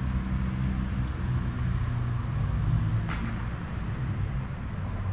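A steady low mechanical hum, like a running motor, over a general background rush.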